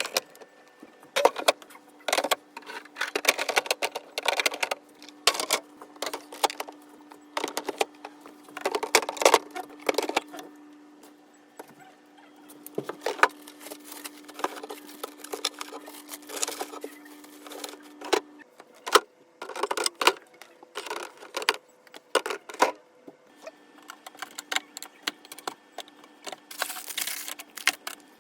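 Containers, jars and bottles being handled and set down on fridge shelves: irregular clinks, taps and knocks. A steady low hum underneath stops about two-thirds of the way through and comes back near the end.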